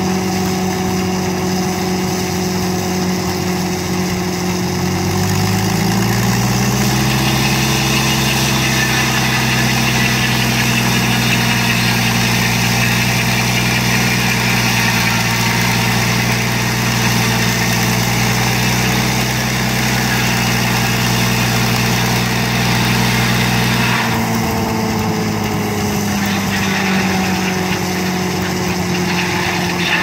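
Engine driving a circular sawmill blade. About six seconds in the blade enters a log and a loud cutting noise joins the engine, whose note shifts as it takes the load. Near 24 seconds the cut ends and the engine note shifts back.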